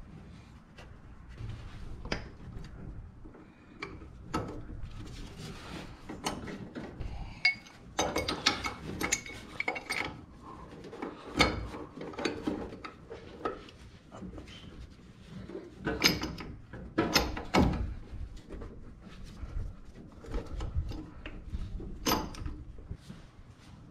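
Metal hand tools clanking, clicking and scraping against engine parts in an irregular run, with clusters of louder knocks, as a stuck fitting on an LS V8 engine is worked loose with a wrench.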